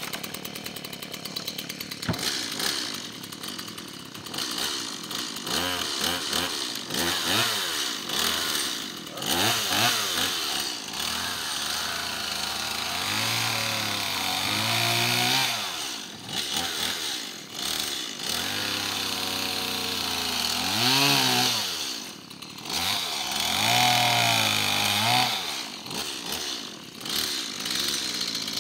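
Gasoline chainsaw catching and idling briefly, then revving and cutting through tree branches. The engine note sags under load and climbs again as each cut finishes, over and over.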